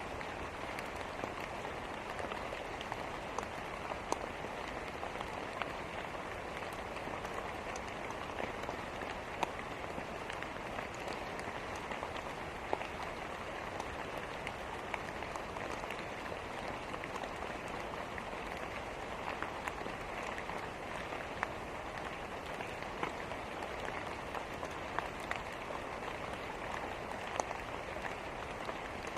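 Steady rain, an even hiss of falling drops, with scattered sharp crackles and pops from a wood fire every second or so.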